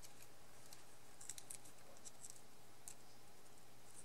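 Faint, scattered crackles and clicks of a small die-cut card-stock piece being handled and worked free by hand.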